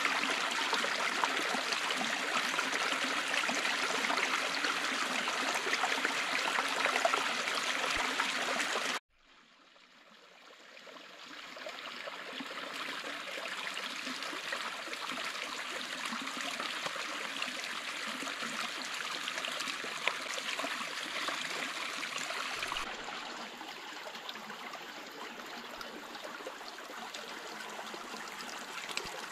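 Shallow forest stream running over rocks, a steady rushing splash of water. About nine seconds in it cuts out abruptly, then fades back in as a softer, quieter flow.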